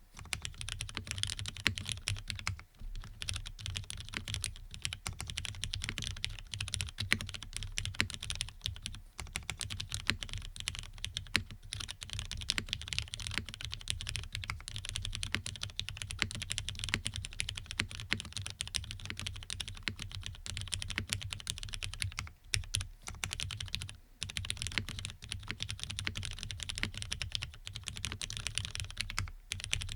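Fast, continuous typing on a custom mechanical keyboard with lubed Cherry MX Black linear switches on an FR4 half plate, a dense clacking of keystrokes with a few brief pauses.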